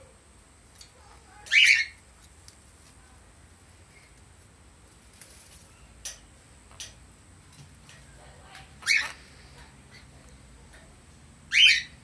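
Three short, loud squawks from a small parrot: one about a second and a half in, one about nine seconds in and one near the end, with a few faint ticks between them.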